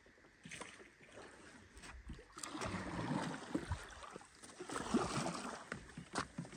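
Paddle strokes in the river beside a wooden canoe: water splashing and swirling, with a few sharp knocks, faint at first and louder from about two seconds in.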